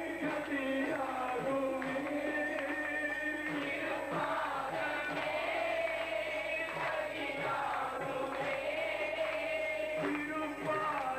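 Devotional bhajan sung by a group of voices in chant-like unison, with frequent short percussive strikes running through it.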